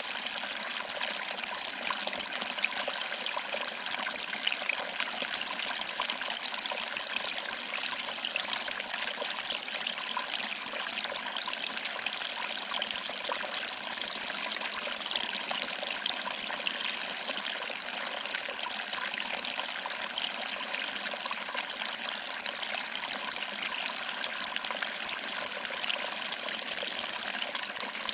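Small waterfall: water trickling over rocks and splashing into a small pool, a steady splashing hiss without deep rumble.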